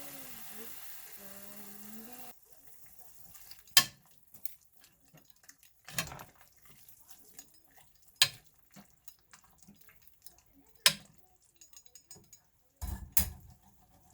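Kitchen sounds: a steady hum cuts off suddenly about two seconds in. After it come five sharp knocks of utensils or dishes, spaced about two seconds apart, with the last two close together near the end.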